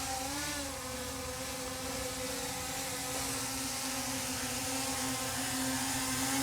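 DJI Mini 4 Pro drone's propellers and motors whining steadily in flight, a high buzzing hum with a brief rise and dip in pitch about half a second in.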